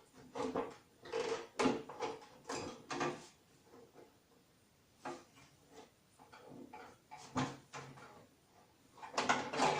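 Plastic back cover of a 15-inch CRT television being handled and worked into place: a run of irregular knocks, clicks and scrapes, busiest in the first few seconds and again near the end.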